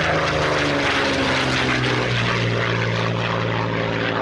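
Propeller aircraft engine running, a steady drone whose pitch shifts slightly partway through.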